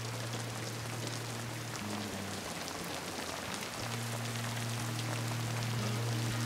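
Steady rain falling, a constant hiss dotted with small drop ticks, over soft, low, held notes of a film score that change pitch a couple of times.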